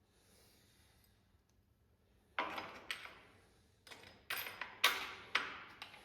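About six short knocks and rattles in the second half, starting about two and a half seconds in, as the ski and spindle are shifted by hand forward and back to line up the bolt holes.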